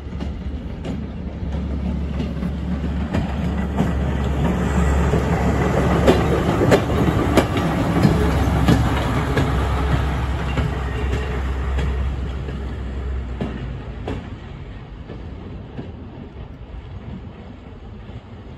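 Rail maintenance draisine (motor trolley) running past on the track: a steady low engine hum with wheels clicking over the rail joints. It grows louder toward the middle, then fades after about 14 seconds as it moves away.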